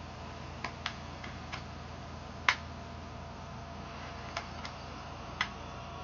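Eight or so sharp, irregular clicks, the loudest about halfway through, over a steady low hum.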